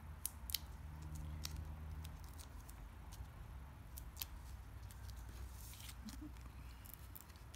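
Scattered small, sharp clicks and a soft paper rustle as fingers handle a cardstock tag, pressing foam adhesive dimensionals onto it and picking at their backing papers, over a faint low hum.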